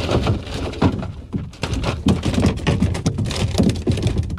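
Rapid, irregular knocks and splashing of a hooked striped bass being landed, thrashing in the water and against a plastic sit-in kayak.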